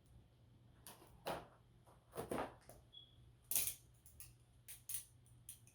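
A shipping package being handled and opened by hand: a scattered run of short clicks, scrapes and rustles of packaging, the sharpest about three and a half seconds in.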